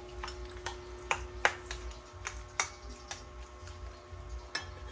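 Irregular series of about a dozen sharp taps and clicks of kitchen utensils knocking during food preparation, over a steady faint hum.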